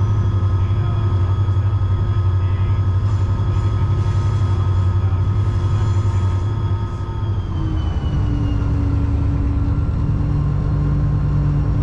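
EMD SD40-3 diesel locomotive's 16-cylinder two-stroke engine running, a steady low drone with steady tones over it, along with the rumble of the train. About seven seconds in the sound dips briefly and settles slightly lower in pitch.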